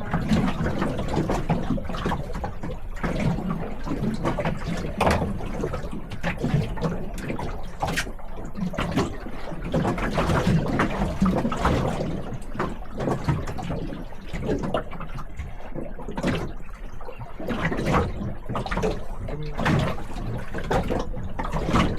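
Choppy water slapping and splashing against the hull of a small fishing boat, a steady wash broken by frequent irregular knocks.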